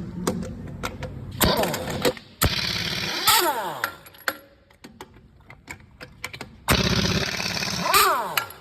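Impact wrench with a 33 mm socket taking the lug nuts off a truck wheel: three bursts of rapid hammering. The longer two end in a falling whine as the tool spins free and runs down. Scattered clicks and knocks fall between the bursts.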